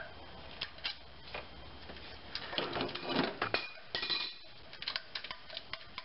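Light metallic clinks and rattles of a steel timing chain, exhaust cam sprocket and cam bolt being handled as the bolt is started loosely by hand on a GM 2.2L Ecotec engine. Scattered single clicks, with a busier clatter about halfway through and again a second later.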